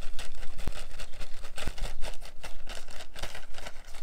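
Plastic poly mailer bag crinkling and rustling in rapid, irregular crackles as a shirt is worked out of it by hand.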